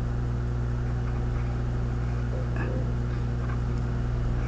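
Steady low hum, with a few faint scratches of a pen drawing on paper.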